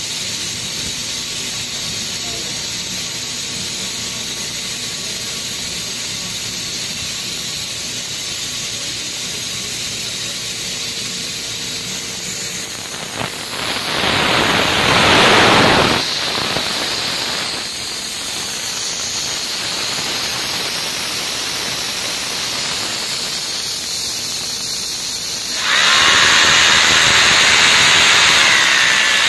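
Steady hiss of compressed air driving the drill stand's vacuum suction base that holds it to the wall. A corded hammer drill with a masonry bit bores into the wall over it, loudest for a couple of seconds about halfway through and again for the last three seconds.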